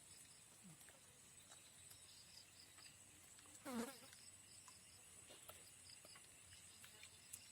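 Faint insect chorus: a steady high drone with soft rhythmic chirping. About four seconds in comes one short pitched call that bends in pitch.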